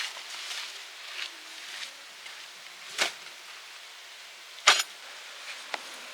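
A few short sharp knocks over a faint steady hiss. The loudest comes about three-quarters of the way through, with a weaker one before it and a small one near the end.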